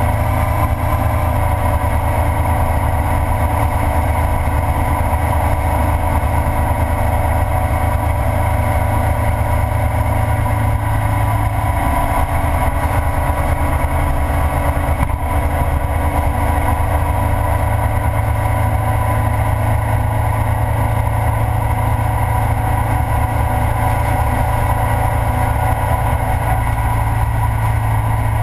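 Ural sidecar motorcycle's boxer-twin engine running at road speed, with wind noise. The engine note eases off about twelve seconds in and builds again a few seconds later.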